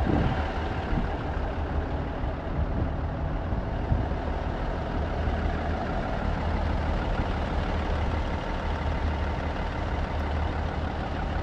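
Diesel semi-truck engine idling with a steady low rumble.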